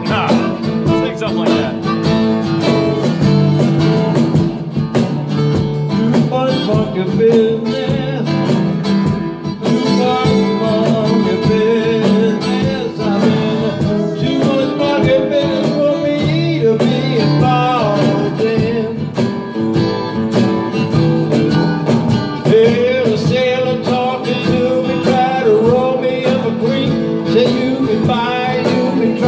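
A live band playing a blues-rock tune, with electric guitars to the fore.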